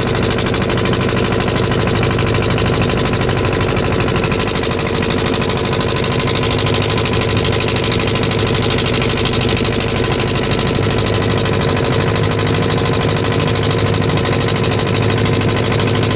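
Boat engine running steadily with a rapid, even beat.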